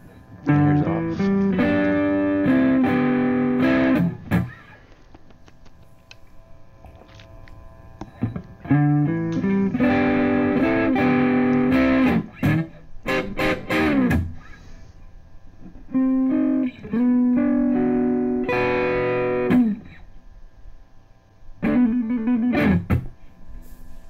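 Electric guitar, a Harley Benton roasted-maple model, played through a Boss Katana Artist MK2 combo amplifier. It plays three short phrases of chords and single notes with pauses between them, then a brief fourth phrase near the end.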